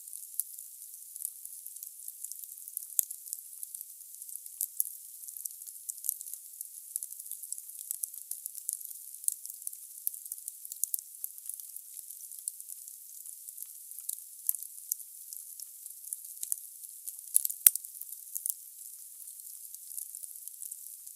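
Wood burning in a fireplace, crackling and hissing: a steady hiss with frequent small pops, and one sharper, louder crack late on.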